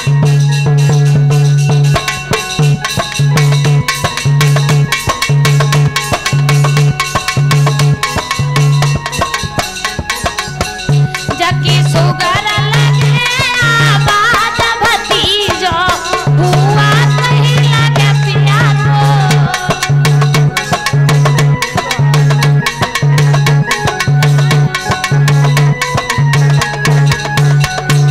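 North Indian folk dance music: fast hand drumming in a steady rhythm with an electronic keyboard, a pulsing low note dropping out for a few seconds midway while a wavering melody comes to the fore.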